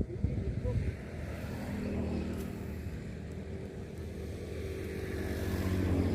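A motor engine running steadily as it passes by, its hum growing louder toward the end.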